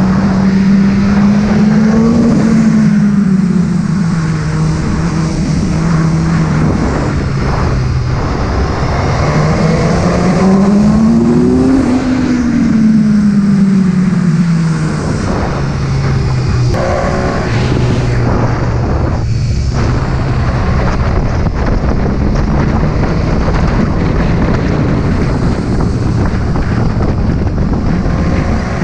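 BMW motorcycle engine running on the road, its note rising and falling twice as the bike speeds up and eases off, then settling to a steadier, lower note for the second half, under constant wind rush.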